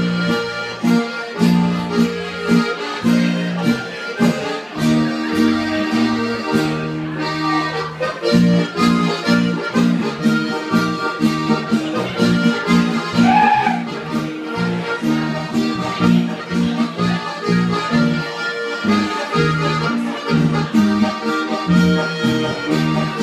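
Live folk band playing: two accordions carry chords and melody over acoustic guitar and keyboard, with a steady beat.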